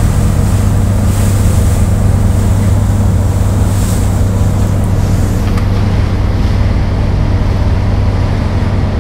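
A boat's engine running steadily with a low drone, the vessel under way through choppy water, with rushing water and wind noise over it.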